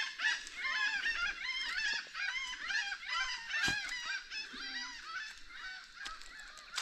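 A flock of birds calling: many short, arched calls overlapping, several a second, growing fainter toward the end. A single sharp knock comes about halfway through.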